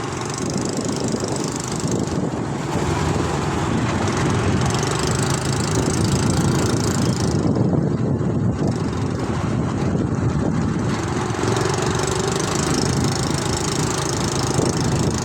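Vehicle engine and road noise, a steady low rumble with no breaks, heard while travelling in highway traffic.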